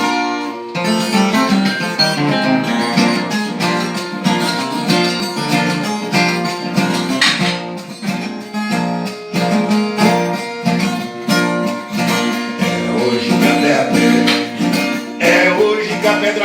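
Instrumental music on viola caipira, the Brazilian ten-string folk guitar: plucked melody lines over a steady strummed rhythm.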